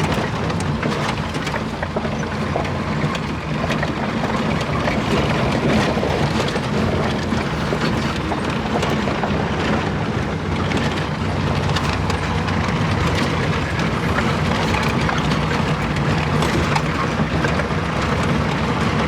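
Vehicle engine running steadily while driving over a rough, broken road, with frequent knocks and rattles.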